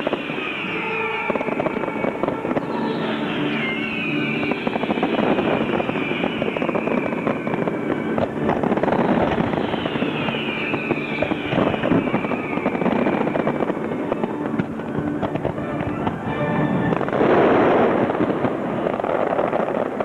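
Fireworks finale: rapid bangs and crackling from shells and ground fountains, mixed with loud show music. The densest, loudest cluster of bursts comes about three-quarters of the way through.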